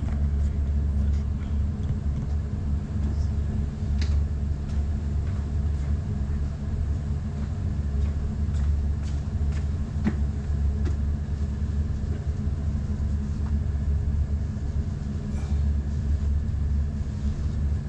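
A steady low machine hum, with a few faint clicks and knocks of handling over it.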